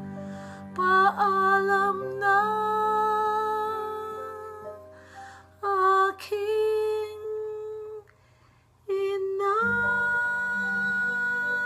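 A woman singing long held notes without words over a soft instrumental accompaniment, pausing briefly about eight seconds in before one more long sustained note.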